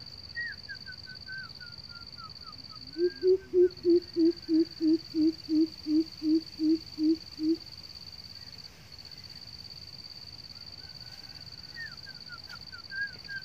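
A coucal giving its deep hooting call: about fourteen even 'hoop' notes at roughly three a second. A steady high-pitched whine runs underneath, and a small bird's thin chirping notes come near the start and again near the end.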